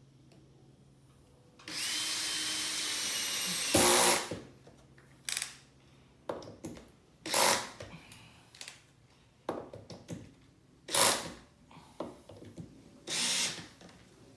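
Cordless drill driving a drywall screw through a metal garage wall track into a wooden stud. The motor runs steadily for about two seconds, then comes a louder burst as the screw goes home, followed by several short trigger bursts.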